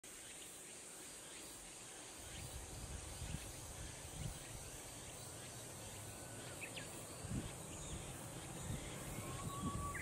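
Cicadas calling in a steady, high-pitched drone. An uneven low rumble comes in about two seconds in, and there are a few short faint chirps.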